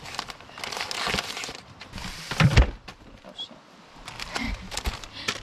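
Rustling and handling noises with several knocks, the loudest knock about two and a half seconds in.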